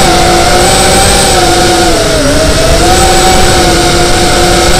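FPV quadcopter's brushless motors and propellers whining at speed, with a noisy rush of air. The pitch dips briefly about two seconds in as the throttle eases, then holds steady.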